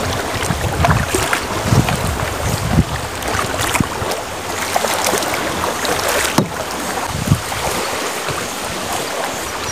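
Wind noise on the microphone and river water lapping and splashing against a kayak hull, with scattered short splashes from paddling.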